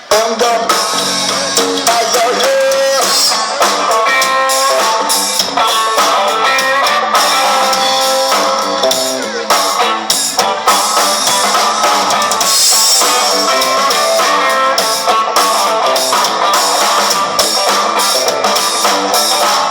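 A band playing an instrumental passage: a guitar picking out melodic lines over a steady drum-kit beat.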